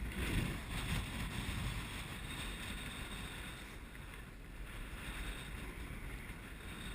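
Wind buffeting the microphone outdoors: a steady low rumbling noise with no distinct events, easing slightly after about two seconds.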